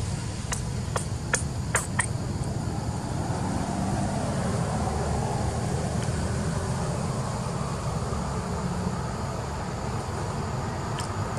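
Steady low outdoor rumble, with a quick run of about five sharp clicks in the first two seconds.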